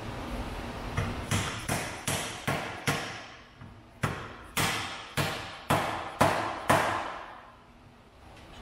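About a dozen sharp knocks, each ringing out briefly, in two runs of six with a short pause between.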